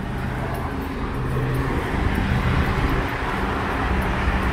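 Road traffic on a busy multi-lane road: a steady hum of vehicle engines and tyres, getting louder about a second in as the shop's glass door opens to the street.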